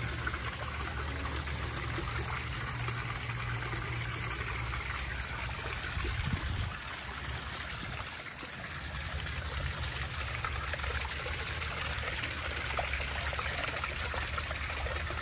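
Backyard koi pond waterfall: water trickling down stones over the pond liner and splashing steadily into the pond.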